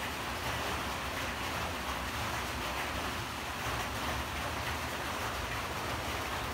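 Steady rushing noise that stays even throughout, with no distinct sounds standing out.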